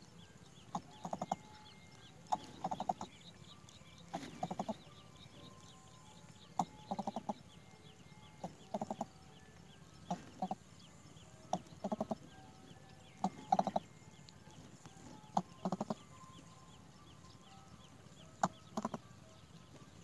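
Greater coucal at the nest giving short, low clucking calls in clusters of two to four pulses, repeated about every two seconds.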